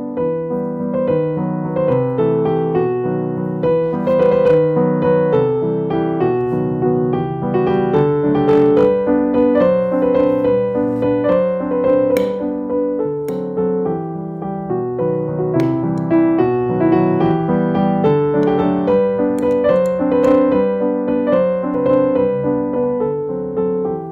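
Background piano music, a steady run of notes throughout.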